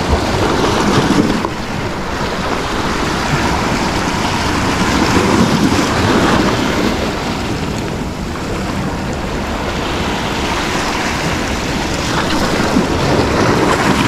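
Sea waves and wind blowing on the microphone: a steady loud rush that swells and eases every few seconds.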